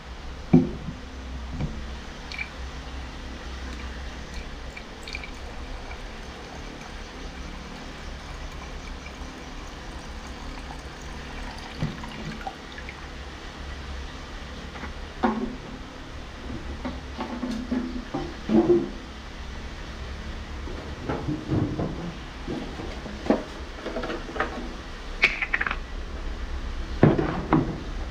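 2K thinner poured from a can into a plastic mixing cup of 2K primer, a steady running pour, with a few short knocks from the can and cup being handled in the second half.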